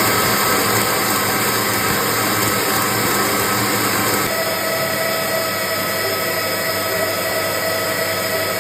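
Electric kitchen mixer running steadily, its whine shifting about four seconds in.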